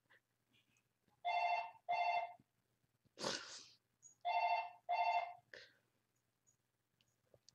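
Telephone ringing in a double-ring pattern: two short rings, a pause of about two seconds, then two more. A short hissy noise falls between the two pairs.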